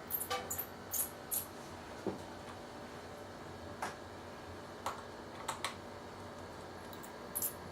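Scattered light clicks and taps of a small screwdriver working the tiny screws out of a laptop's plastic screen bezel and handling the plastic, at irregular intervals.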